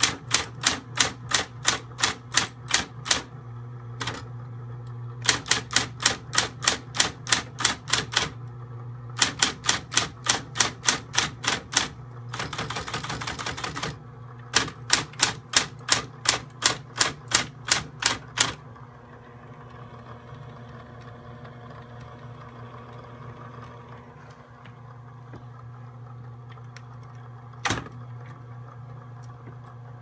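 Vintage Smith Corona electronic typewriter typing in runs of a few seconds, the keys striking about four times a second over a steady low motor hum. A bit past the middle comes a second and a half of rapid continuous clatter, then the typing stops, leaving the hum, with one lone strike near the end.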